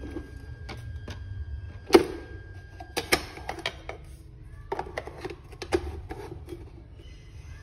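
Hard plastic clicks and knocks as the clear drip tray is slid out of the base of a wall-mounted plastic chopstick holder and handled: one sharp click about two seconds in, then quick clusters of taps.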